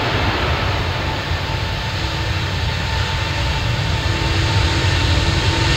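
Airbus A350's Rolls-Royce Trent XWB turbofan engines running as the airliner rolls along the runway: a steady low rumble and roar with a faint whine, growing louder toward the end.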